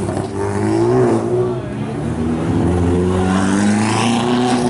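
Touring race car engines running at low speed, their note rising and falling with the throttle as the cars move slowly along the street, with a rise about a second in and another near the end.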